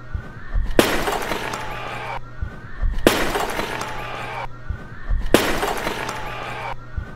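Clay jar smashing on a stage floor, three times about two seconds apart, each crash trailing off for over a second as the shards scatter.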